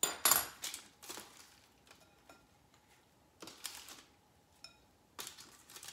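Brief scraping and rustling noises of food being handled on a kitchen counter: a loud one just after the start, then a few softer ones, with a faint steady hum underneath.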